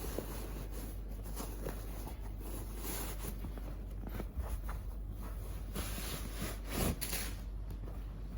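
Rustling and handling noises as a newborn baby mattress and bedding set is unpacked, with louder rustles about three, six and seven seconds in, over a low steady hum.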